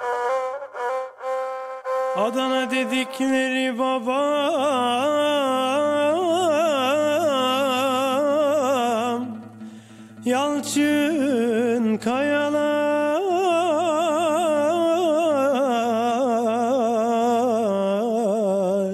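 A male voice sings a slow, heavily ornamented Turkish classical melody, with oud accompaniment. A short plucked oud phrase opens, then the voice comes in about two seconds in. It breaks off briefly about halfway and comes back in.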